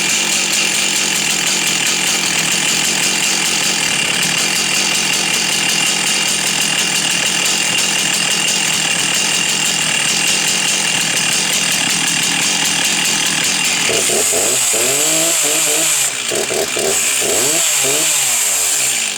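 Stihl 036 Pro 61cc two-stroke chainsaw running at steady high revs, then revving up and down repeatedly for the last few seconds before cutting off abruptly.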